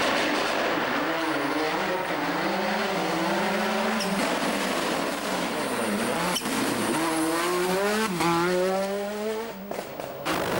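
World Rally Car's turbocharged four-cylinder engine under hard acceleration on a rally stage, its revs climbing and falling back through several quick gear changes. It fades briefly near the end.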